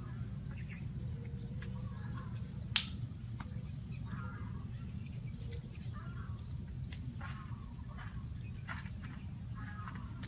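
Small birds chirping now and then over a steady low rumble, with a single sharp crack about three seconds in and a few fainter clicks later.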